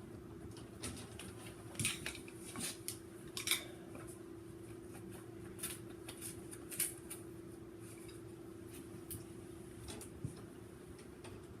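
Scattered light clicks and scrapes of hand work with wires and tape, over a steady low hum.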